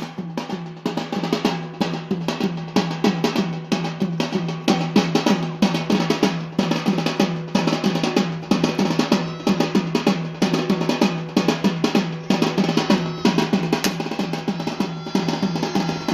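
Live drumming for a Yemeni bara' dance: drums beaten in a fast, driving rhythm that never pauses, with a steady low tone held underneath.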